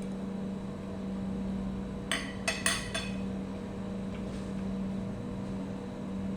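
Cutlery clinking against a plate or bowl about four times in quick succession, a couple of seconds in, over a steady low hum.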